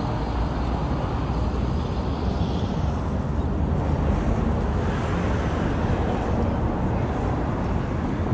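Steady low rumble of outdoor street noise, with no distinct events.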